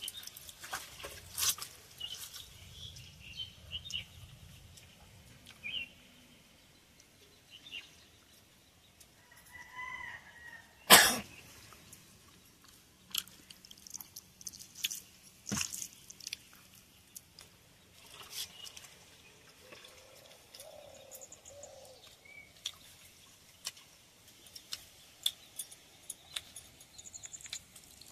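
Eating by hand: soft clicks and smacks of chewing and of fingers working rice in a steel pot, with a sharp knock about eleven seconds in and a smaller one a few seconds later. A bird calls briefly now and then.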